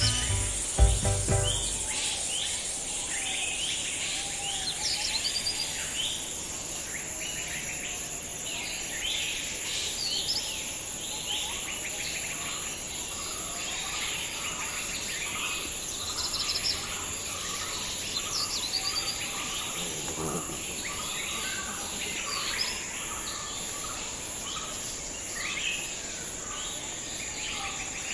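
Many birds chirping and calling over a steady high insect drone, like crickets. A low, loud sound at the very start stops about two seconds in.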